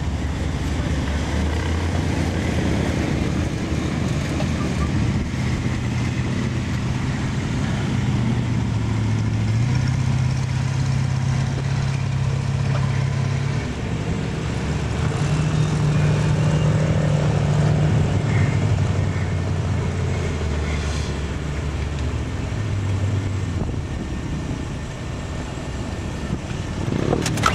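Off-road 4x4's engine running, with the revs stepping up and down again and again.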